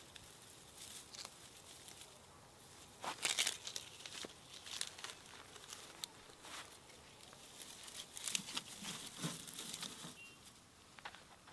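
Dry twigs and sticks rustling, scraping and snapping as they are picked up off dry grass and stacked into a pile, with irregular crackles; the loudest cluster comes about three seconds in.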